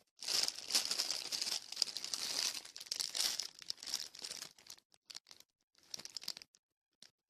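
Thin plastic packaging crinkling as it is handled. The crinkling is dense for the first four seconds or so, then thins to a few scattered crackles.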